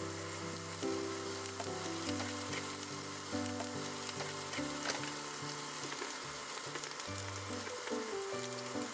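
Minced chicken and shiso patties sizzling steadily in sesame oil in a frying pan.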